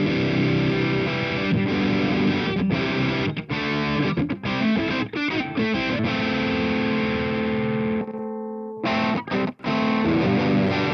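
Electric guitar with a new cheap pickup, played with heavy distortion through the Amplitube 4 amp simulator: chord riffs cut by short, sharp stops. About six seconds in a chord is left to ring out, then choppy stabbed chords resume.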